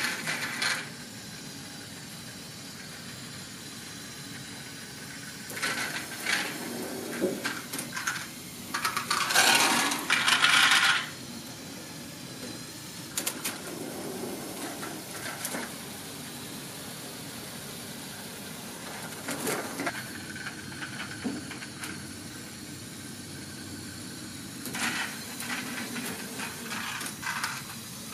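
Lego Technic train modules running: a rotary dumper and an elevator driven by small electric motors, with a steady motor whir. Over it come repeated bursts of plastic clatter as the gears, track and wagon move and the small plastic balls rattle and tumble out. The loudest bursts come about ten seconds in and again near the end.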